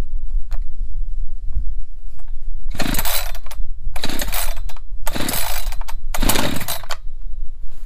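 Echo CS-590 two-stroke chainsaw's recoil starter pulled four times, starting about three seconds in. Each pull is a brief rasping whir of the cord and the engine turning over, and the engine does not yet fire. Wind rumbles on the microphone throughout.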